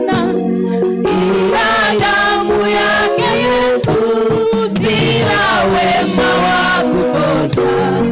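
Church worship team and congregation singing a gospel song together over keyboard and bass accompaniment.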